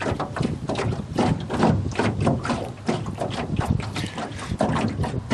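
Water lapping and splashing against the hull of a small boat under way, a quick irregular run of splashes.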